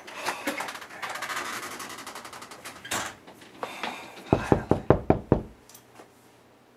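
A door shuts about three seconds in, then a fist pounds rapidly on a wooden front door, about eight loud, deep thumps in just over a second.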